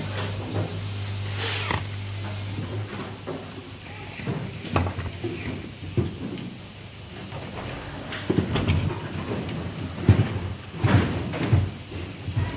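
Corded electric screwdriver running for about the first two seconds as it drives a terminal screw, then scattered clicks, knocks and rustles of cable and plastic housing being handled.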